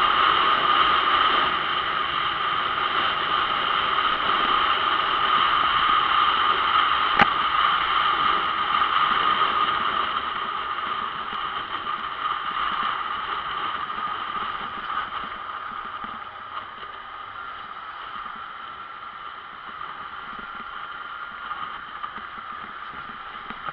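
Wind rushing over the camera microphone of a moving motor scooter, with the scooter and road noise underneath; it dies down somewhat about two-thirds of the way through. One sharp click about 7 seconds in.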